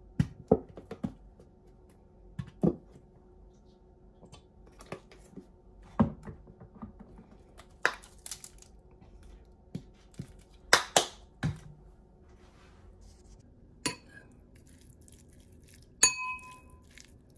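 A metal spoon knocking and clinking against a ceramic bowl, with a couple of hissing squirts from plastic squeeze bottles of mayonnaise and ranch. Near the end a spoon strike leaves a short ringing ping.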